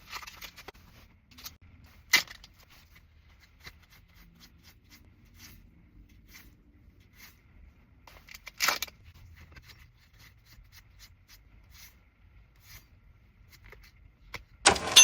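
Foil booster pack wrappers crinkling and tearing open, with trading cards handled and shuffled in small ticks and rustles; louder sharp rips come about two seconds in and about halfway through. Right at the end a loud ringing chime sounds.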